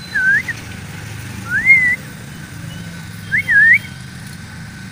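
A person whistling to call a puppy: three short whistles that slide up and down, about a second and a half apart.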